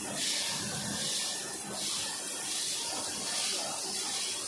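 Toilet tissue log band saw cutting machine running, with repeated swells of hissing as it cuts.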